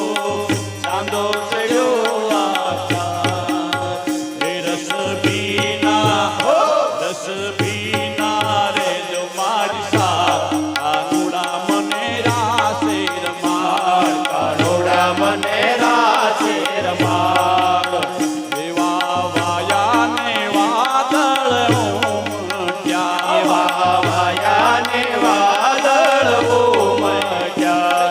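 Indian devotional music, a Gujarati bhajan-style piece with tabla and a wavering melody line over a low bass note that pulses about every two seconds.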